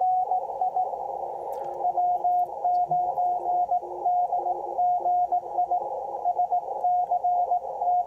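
Morse code (CW) tone from an HF ham radio receiver, a single steady pitch keyed on and off in dots and dashes over narrow-filtered band hiss, with a fainter, lower-pitched second signal from about two to four and a half seconds in. It is a station sending its slow-speed contest exchange, giving the name Scott and the state Wisconsin.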